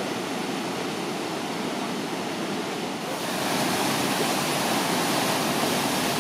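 Fast-flowing stream rushing over a small weir. About three seconds in it changes to a louder, brighter rush of churning whitewater from a standing river wave used for surfing.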